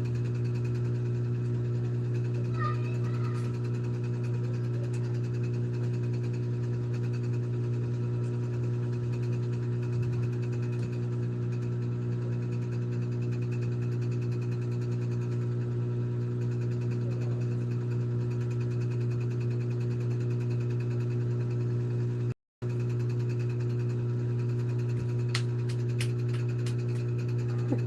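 A steady low mechanical hum with several even overtones, unchanging in pitch and level. It drops out for a split second about three quarters of the way through.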